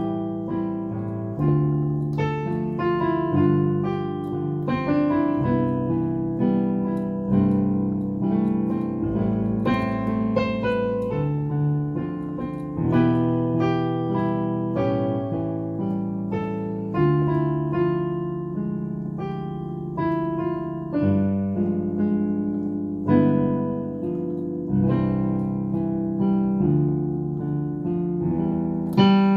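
Solo digital piano played with both hands in the key of C: left-hand chords under a right-hand melody, new notes every half second or so, the notes held and ringing over one another.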